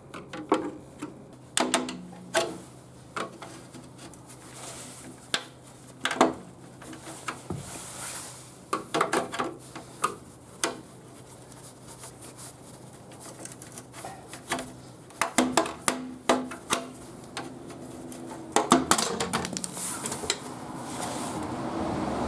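Scattered metallic clinks, clanks and knocks of hand tools and wheel parts being handled during a car tyre change, in several clusters with quieter stretches between.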